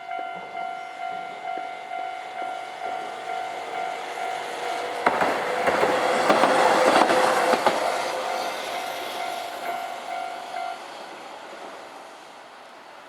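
Level-crossing warning bell ringing at about two strokes a second while a Hankai Tramway tram runs over the crossing, its wheels clacking over the rail joints. The tram is loudest a few seconds in, and the bell stops near the end.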